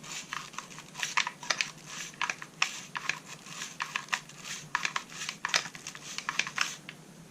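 Small cleaning brush scrubbing fouling off a GSG-16 rifle's metal parts: quick, irregular scratchy strokes that stop shortly before the end.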